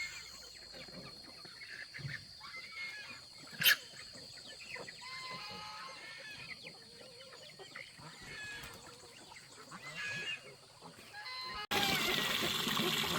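Chickens clucking softly with short scattered calls, and a single sharp knock about four seconds in. Near the end the sound cuts suddenly to a louder, steady rushing noise.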